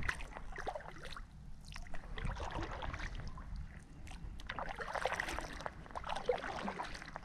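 Kayak paddle strokes: the blade dipping into and pulling through lake water, with irregular splashing and dripping, heaviest a little past halfway.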